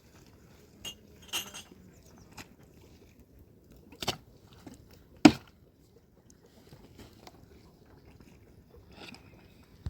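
A few scattered sharp knocks and clatters from hands-on building work: two sharp knocks about four and five seconds in, the second the loudest, with fainter knocks before and after.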